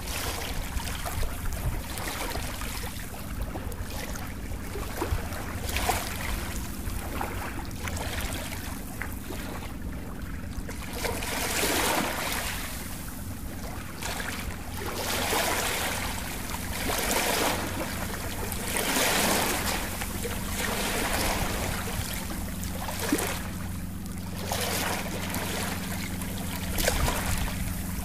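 Rushing noise that swells and fades every few seconds, like surf, over a steady low hum.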